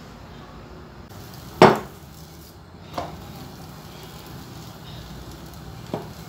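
Knocks of kitchenware as rolled chapati dough is moved from the counter into a preheated stainless steel frying pan: one loud, sharp knock about a second and a half in, then two lighter knocks, one near the middle and one near the end.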